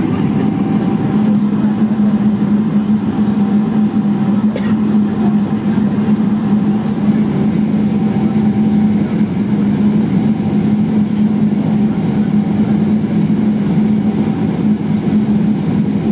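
Cabin noise inside a Boeing 777-300ER moving on the ground: a steady rushing hum with an even, constant drone underneath.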